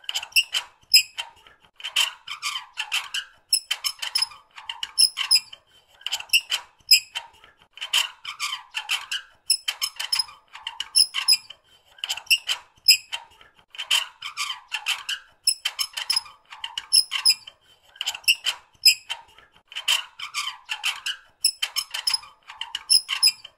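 Metal squeaking in repeated bursts of short, high-pitched squeaks, about one burst every two seconds.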